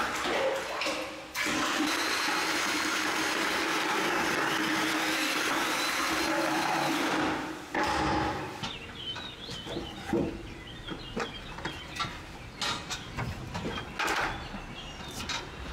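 Cordless drill with a mixing paddle running steadily in a plastic bucket of paint, with a brief stop about a second in, then cutting off after about seven seconds. After that, light knocks and bird chirps.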